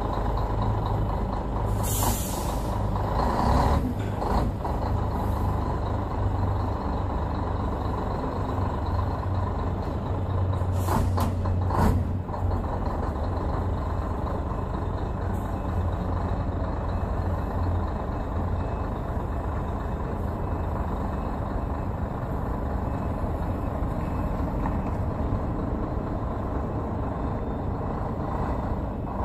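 Scania 113's 11-litre straight-six diesel running at low revs as the truck reverses slowly. A long hiss of air brake release comes about two seconds in, and a few short air hisses come around eleven to twelve seconds in.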